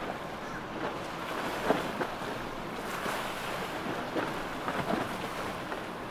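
Wind and surf over open water, with a motorboat running through the chop and occasional sharper splashes, the loudest about two seconds in.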